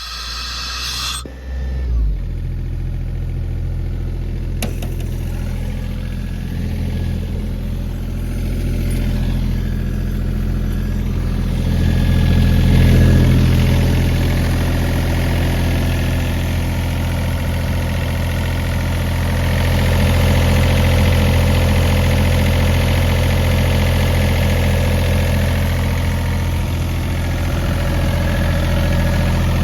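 Yanmar diesel engine of a 2007 Ingersoll Rand portable air compressor running steadily, getting a little louder partway through.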